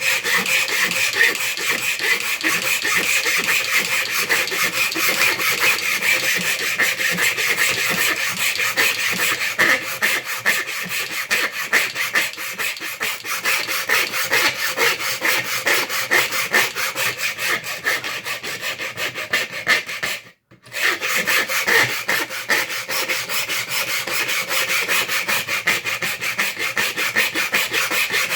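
Hand file rasping on hard plastic in quick, even back-and-forth strokes, filing the sawn-off ball-storage stub of a Knockout blaster's shell down flush. There is a short break about two-thirds of the way through.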